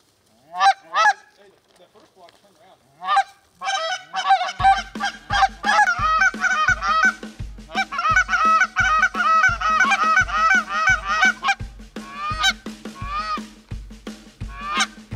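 A flock of Canada geese honking overhead: a few single honks at first, then a dense chorus of overlapping honks from about three and a half seconds in. A steady low music beat comes in under the honking about a third of the way through.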